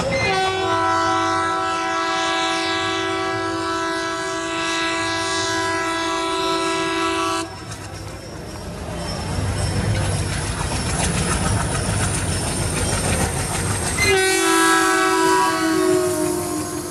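WDG-3A diesel locomotive's air horn sounding one long multi-note blast of about seven seconds, then the train's wheels clattering over the rail joints as it runs through at speed, and a second, shorter horn blast near the end whose pitch drops as the locomotive passes.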